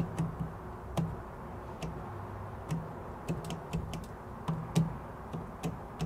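Leviton Decora Plus rocker three-way switches clicking as they are flipped on and off repeatedly, in irregular clicks, sometimes several a second. The switching is a test of a freshly wired three-way circuit, and the light responds to every combination.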